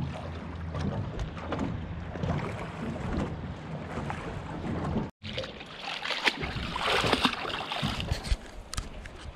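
Fishing kayak moving across calm sea water, with a steady low rumble of water and wind on the hull. After a sudden cut about five seconds in, water splashes and sloshes against the kayak's side, with a few sharp knocks and splashes as a mesh net is handled at the water's surface.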